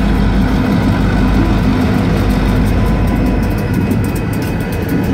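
EMD GP38-2 and GP40-2 diesel locomotives rolling slowly past at close range, their engines running with a steady low rumble. The crossing's electronic bells ring throughout, their even strikes standing out more near the end as the engine sound eases.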